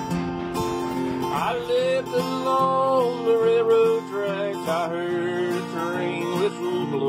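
Instrumental country music: acoustic guitar chords with a lead melody that slides and wavers in pitch over them.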